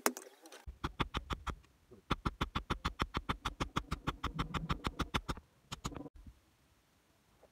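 Hand hammer striking a red-hot steel blade on an anvil in rapid, even blows, with a short pause about a second and a half in; the hammering stops about six seconds in.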